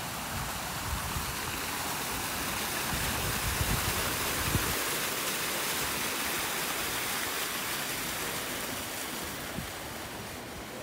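Ornamental fountain splashing steadily, with jets falling into the basin and water pouring down a wall. The rush grows louder toward the middle and fades near the end.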